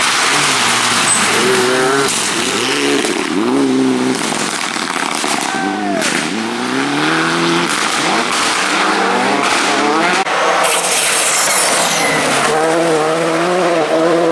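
Rally cars at race pace on a forest stage, among them a Peugeot 208 and a Škoda Fabia, passing in turn. Their engines rev hard, the pitch climbing and dropping with each gear change and lift, with a few sharp cracks along the way and a high, held rev near the end.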